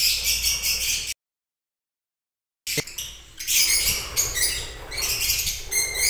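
Lovebirds in a colony aviary chirping continuously in dense, high-pitched chatter. The sound drops out completely for about a second and a half, and a single click comes just after it returns.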